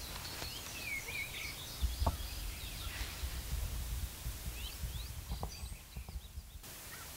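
Quiet outdoor ambience: a low wind rumble on the microphone with scattered short songbird chirps and a few light clicks.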